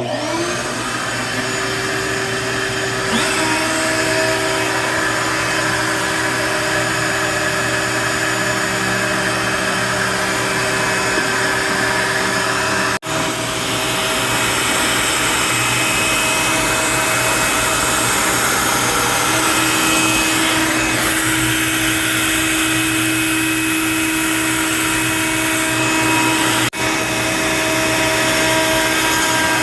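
CNC router spindle running a 1/16-inch detailing bit through wood: a loud, steady machine whine over rushing noise, starting suddenly with a short rising spin-up.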